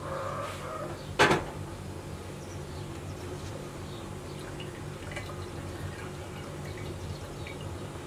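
Hands rubbing a scalded lamb head in hot water in a cast-iron pot: quiet wet sloshing and small ticks, over a steady low hum. A single sharp knock about a second in is the loudest sound.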